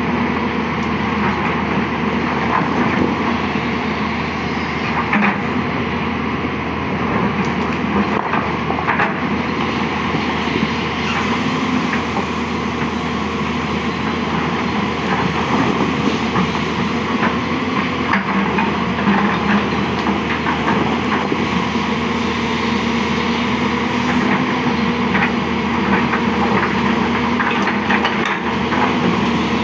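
Hyundai 220-9S crawler excavator's diesel engine running steadily under working load, with scattered sharp knocks and cracks as the bucket works through branches and debris on the riverbank.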